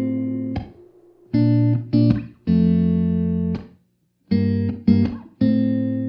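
Background music: a guitar playing chords in short repeated phrases, two quick hits and then a longer held chord, with brief gaps between phrases and no singing.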